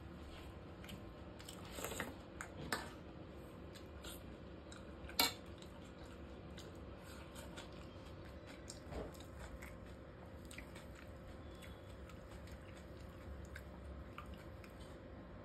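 Someone chewing and eating a masala dosa by hand, with faint clicks of fingers and food against a stainless-steel plate and one sharper click about five seconds in.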